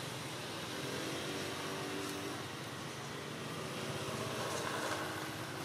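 A distant motor vehicle's engine running steadily, a faint hum over constant background hiss.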